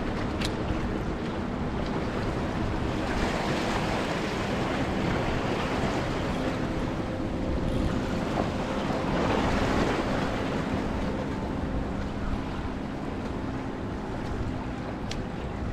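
Waves washing against rocks, surging louder twice, with wind buffeting the microphone and a faint steady low hum underneath.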